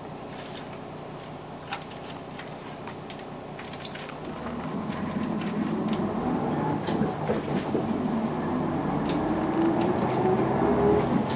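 Isuzu Erga city bus (PJ-LV234L1) heard from inside: its six-cylinder diesel idles at a stop, then pulls away about four seconds in, louder, with the engine note rising as the bus accelerates.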